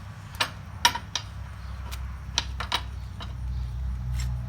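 Sharp metal clinks and knocks, about six in all, as the sickle bar of a Ford 501 sickle bar mower is slid and the new Pitman arm is worked into place by hand. A low steady hum runs underneath and grows a little louder in the last second or so.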